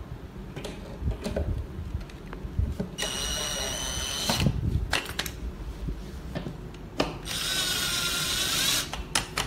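Cordless drill driving bolts into the side panel of a flat-pack shelf unit. There are two short runs of about a second and a half each, about three seconds in and again near the end, each a steady motor whine, with small knocks of handling between them.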